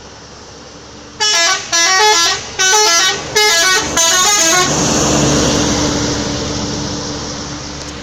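Bus's telolet musical air horn playing five short blasts, each stepping through several pitches as a little tune. Right after, the bus's engine and road noise swell and then fade.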